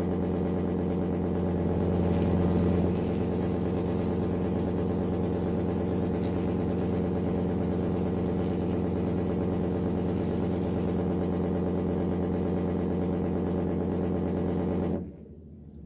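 An engine running steadily at idle, swelling briefly about two seconds in, then cutting off abruptly near the end.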